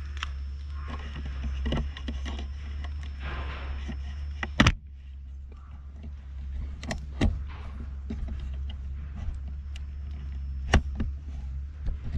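Handheld camera handling noise: a steady low rumble with a few sharp clicks and knocks, the loudest about four and a half seconds in.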